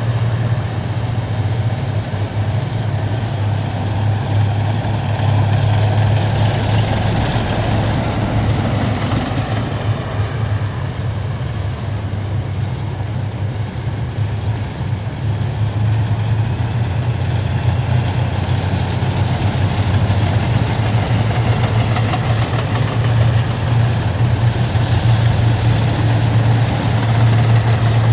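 Heavy military vehicles driving past in a column, their engines running with a loud, steady low hum that grows a little louder near the end.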